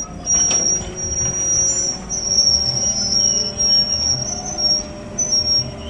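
Amphibious mini excavator working in a river: its diesel engine runs steadily, with a high, thin squeal held over the low rumble and a slow, regular low pulsing.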